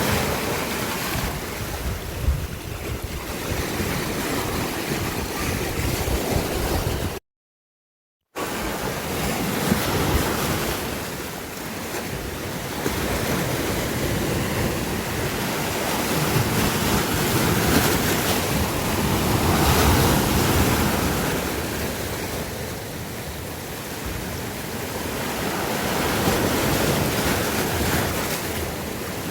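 Sea waves washing on the shore, a steady rushing that swells and ebbs every few seconds. About seven seconds in the sound drops out completely for about a second, then resumes.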